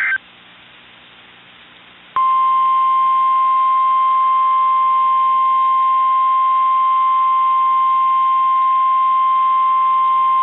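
NOAA Weather Radio's 1050 Hz warning alert tone: a single loud steady beep that starts about two seconds in and holds. It is the signal that a warning message follows. Before it, at the very start, is the end of a burst of the buzzing digital SAME header, then a couple of seconds of faint radio hiss.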